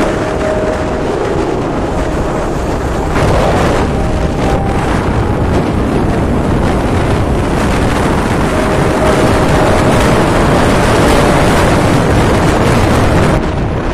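Wind buffeting the microphone on a moving motorcycle, over the motorcycle's engine running steadily. It grows louder about three seconds in.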